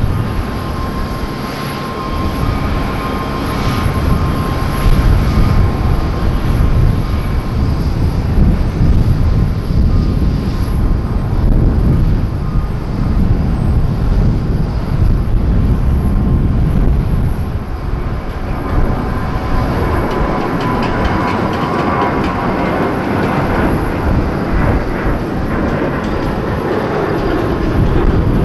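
Jet airliner engines on landing approach: a loud, steady rumble, joined about two-thirds of the way in by a brighter engine whine.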